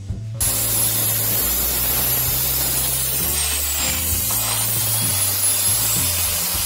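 Bosch cut-off saw cutting through PVC pipe: a loud rasping cut over the motor's high whine, starting suddenly about half a second in. The whine drops in pitch midway as the blade takes the load of the cut, then rises back to speed.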